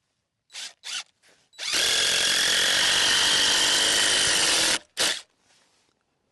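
Power drill driving screws into wooden blocks: a few short trigger bursts, then a steady run of about three seconds, then one more short burst.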